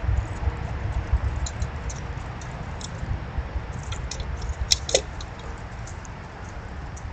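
Scattered small clicks and ticks of animals feeding among the seed hulls under a bird feeder, with a sharper double click about five seconds in, over a low steady rumble.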